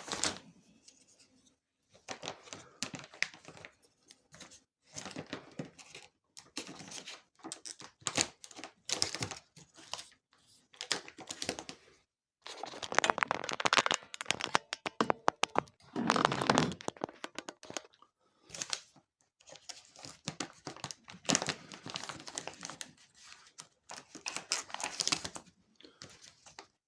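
Vacuum-pack plastic sheeting around a foam mattress being slit with a small cutter tool and handled: irregular bursts of crinkling and tearing plastic, on and off with short pauses.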